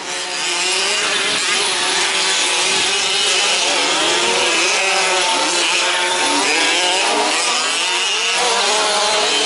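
Several 1/5-scale RC off-road trucks' small two-stroke petrol engines racing together, overlapping engine notes revving up and down as the trucks accelerate and brake.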